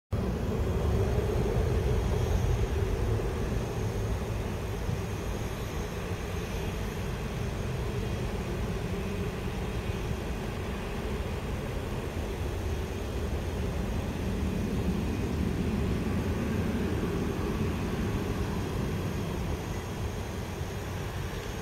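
Airbus A330-243 airliner on final approach, its jet engines a steady distant rumble, loudest in the first few seconds.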